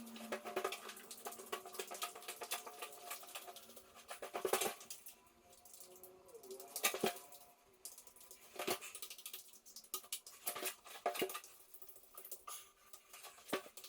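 Irregular light clicks and taps with a few sharper knocks, over a faint steady hum.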